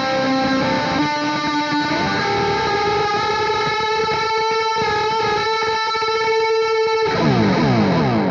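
Electric guitar playing a slow droning lead line through a Maestro Discover delay: fretted notes ring against a held open-string drone, with a slow bend up about two seconds in. Near the end the notes stop and the delay repeats trail off, sliding down in pitch as they fade.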